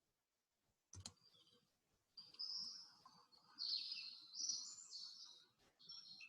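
A single tap about a second in, then a recorded birdsong sound effect: birds chirping in a run of high, quick phrases.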